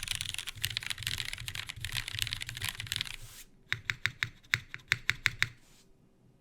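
Typing on a Cruel World CW88 mechanical keyboard with lubed, filmed Cherry MX Vintage Black linear switches on a polycarbonate plate, with GMK keycaps. Fast continuous typing gives way about three and a half seconds in to a dozen or so slower, separate key presses, which stop shortly before the end.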